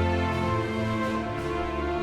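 Background music: slow, sustained instrumental chords.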